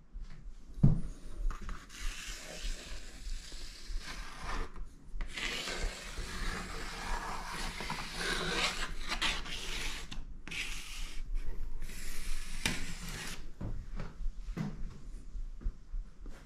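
Charcoal dragged across paper in long drawing strokes, a scratchy rubbing in several runs of a few seconds each, then a few short strokes near the end.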